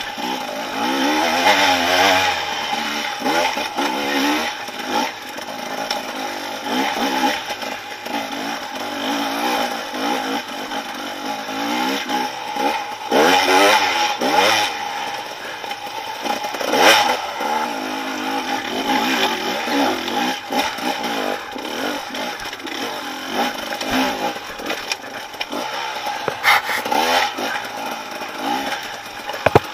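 Dirt bike engine revving up and down again and again as the bike picks its way over rocky ground, with clattering and scraping from the rocks and the bike's chassis over it.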